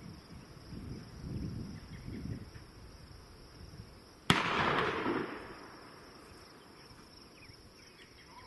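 A single gunshot about four seconds in: one sharp crack followed by a rolling echo that dies away over about a second and a half. Before it, soft handling and rustling noises from loading a muzzle-loader.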